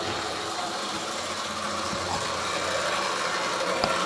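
Model railway train running along the track: a steady motor hum with wheel noise on the rails.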